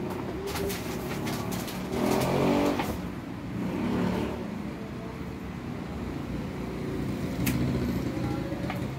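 A motor vehicle engine running and revving, loudest about two to three seconds in, with a few sharp clicks of small objects handled on a table.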